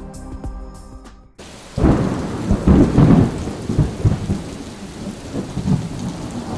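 Intro music stops abruptly about a second in. A thunderstorm sound effect follows: a loud rolling thunderclap over steady rain, strongest in its first couple of seconds and then dying away.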